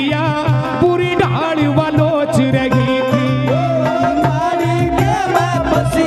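Instrumental interlude of a Haryanvi devotional bhajan played live: a melody instrument with a wavering pitch over hand-drum strokes and a repeating low note.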